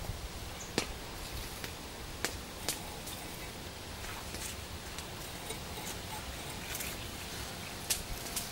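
Quiet outdoor background with a handful of short, light clicks scattered through it.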